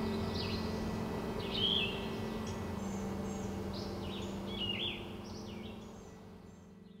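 Songbirds chirping, short calls with quick rising and falling glides every second or so, over low sustained tones, all fading out near the end.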